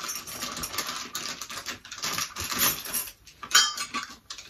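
Small metal screws and fittings clinking and rattling in a plastic hardware bag as it is rummaged through, a dense run of irregular clicks with the bag crackling, louder about three and a half seconds in.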